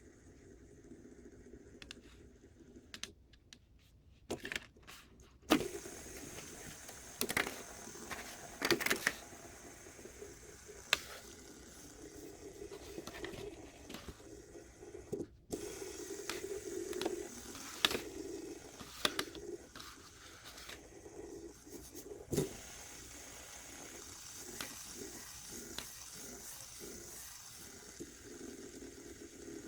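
Fidget spinner being handled: scattered clicks and knocks, with a faint steady whir that swells and fades between them.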